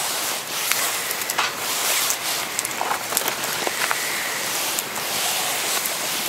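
Wood campfire burning under a wire grill: a steady hiss with scattered sharp crackles and pops from the burning logs.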